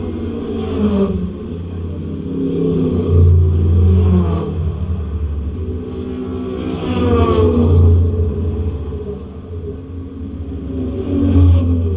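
Porsche 911 RSR's air-cooled flat-six engine running loud, its pitch rising in repeated surges of acceleration, about three times, each peaking and then dropping back.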